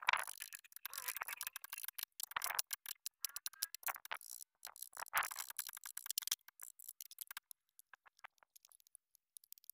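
Hammer tapping a small carving chisel into wood in rapid light strikes, with a few harder blows; the taps thin out and turn faint in the last few seconds.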